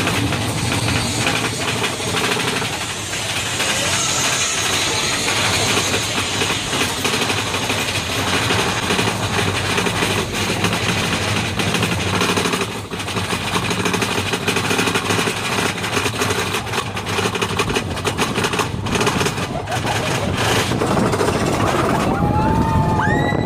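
Big Thunder Mountain mine-train roller coaster rattling and clattering along its track in a steady, loud din of fast knocks, with wind rushing over the microphone. Near the end riders' voices rise in a few shrieks.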